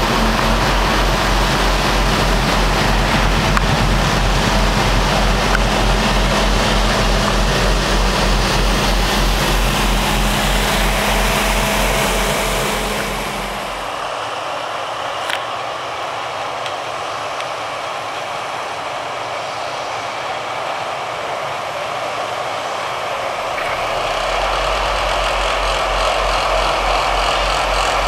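John Deere 772D motor grader's diesel engine running close by as it works gravel with its blade, a steady low rumble with a held hum. About halfway through the sound drops to quieter, more distant road machinery with the low rumble gone, and the low rumble comes back near the end.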